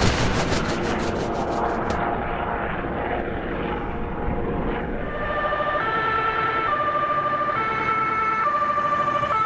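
Ambulance helicopter hovering low, its rotor beating steadily, cut off abruptly about two seconds in. From about halfway, an ambulance's two-tone emergency siren alternates between a lower and a higher note about once a second.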